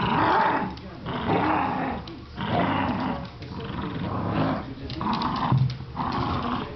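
Dogs growling in play during a tug-of-war over a rope toy, in about six rough bursts of half a second to a second each, with short pauses between.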